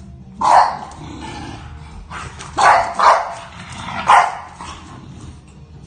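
English bulldog puppies barking while play-fighting: four short barks, the middle two in quick succession.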